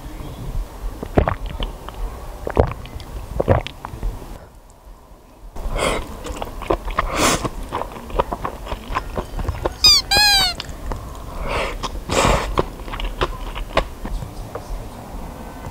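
Close-up eating sounds of cold naengmyeon noodles: slurping and chewing, with sharp clicks of chopsticks against a porcelain bowl. A short run of quick falling chirps sounds about ten seconds in.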